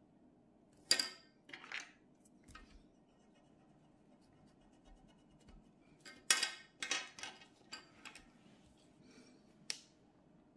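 Short, scratchy rustles and scrapes of a sheet of drawing paper being handled and drawn on with a pencil over a glass tabletop: two about a second in, then a run of several from about six seconds in.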